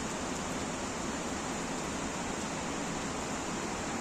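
Steady rushing of a swollen, muddy mountain stream in flood after heavy rainfall.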